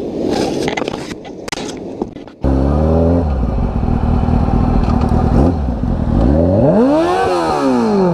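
Scraping and clattering noise for about two seconds, then a sport motorcycle's engine running steadily, revving up and back down near the end.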